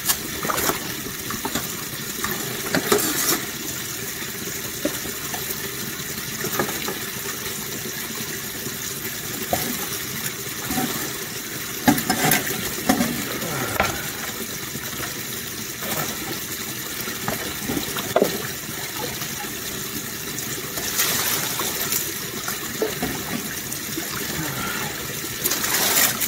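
Water running and splashing as a sluice box is rinsed out into a plastic bucket to collect the concentrates, over a steady rush of running water. Scattered knocks and short rattles come from the metal classifier screen and sluice being handled.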